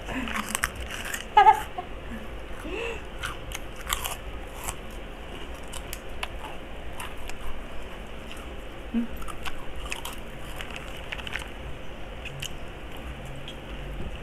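Close-up crunching and chewing of crispy fried pork snacks (chicharon pork rinds and lechon kawali), a run of irregular crisp cracks. A brief voice sound comes about one and a half seconds in.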